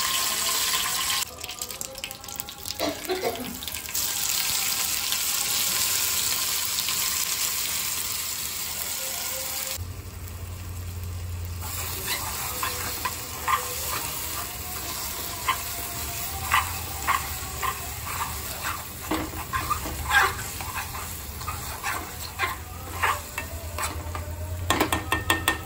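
Curry leaves sizzling loudly in hot oil in an aluminium kadai for the first ten seconds or so. After that, a metal spoon stirring thick masala in the pan, with many short scrapes and taps against the metal over a low steady hum.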